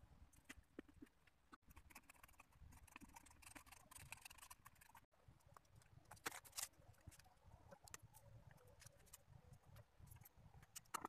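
Near silence with faint, scattered clicks and light rustles of paper and cardboard being handled, and a couple of slightly louder taps about six seconds in.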